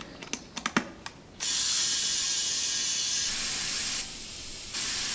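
A few light clicks, then compressed air hissing steadily through a tyre inflator with a dial gauge into a car tyre's valve, inflating the freshly plugged tubeless tyre. The airflow drops off about four seconds in and comes back shortly after.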